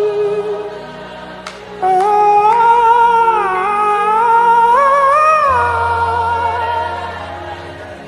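Slow worship music: sustained, wordless sung notes gliding between pitches over a quiet accompaniment, with a low sustained bass note coming in about five seconds in.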